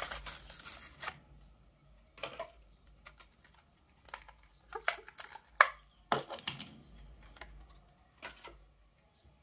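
Plastic blister and cardboard backing of a toy-car package being peeled and torn open by hand: irregular crinkles and clicks of the plastic, with a few louder snaps about halfway through.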